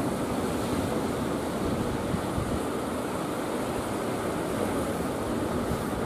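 Heavy sea surf breaking over rocks and onto the shore: a steady, unbroken wash of noise.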